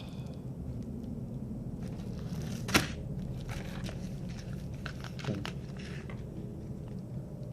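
Packaging being handled and opened: scattered light rustles and clicks, with one sharp snap about three seconds in and a smaller one a couple of seconds later, over a steady low hum.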